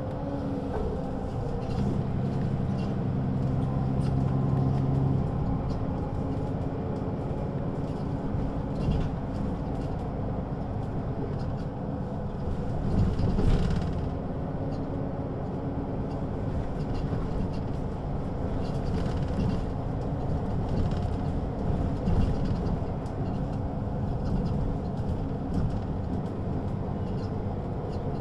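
Mercedes-Benz O 530 G (Citaro G) articulated bus running under way, its diesel engine and ZF gearbox note shifting in pitch as it drives. A brief louder burst of noise comes about halfway through.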